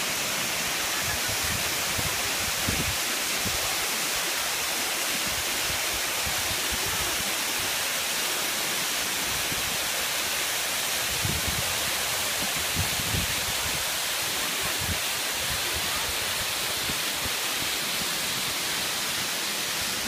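Waterfall pouring over rock into a pool: a steady, unbroken rush of falling water.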